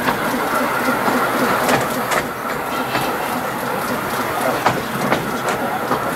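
Bala Lake Railway's narrow-gauge train running along the track, a steady rolling noise broken by sharp clicks from the rails every so often.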